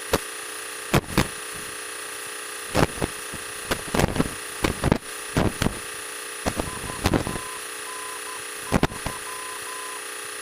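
Light-aircraft headset intercom and radio audio: a steady hum and hiss from the engine and electronics, broken by a series of sharp clicks and crackles, with a string of short beeps on one steady pitch in the second half.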